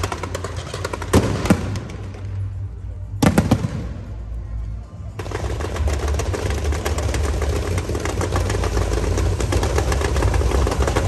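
Firecrackers going off: a few loud separate bangs in the first four seconds, then from about five seconds in, a long string of firecrackers crackling in a dense, unbroken rapid rattle.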